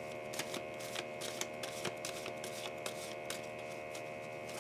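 Deck of tarot cards being shuffled by hand: soft, irregular flicks and slaps of cards against each other, a few a second.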